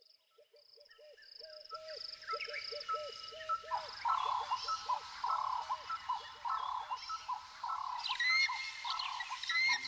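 A chorus of bird calls, several kinds of short chirps and whistles repeating at different pitches. It fades in from near silence over the first few seconds.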